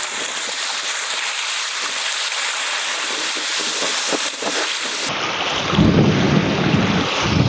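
Sea surf washing and splashing around the shallows, a steady rushing hiss. About five seconds in it gives way to a louder, deeper rumble.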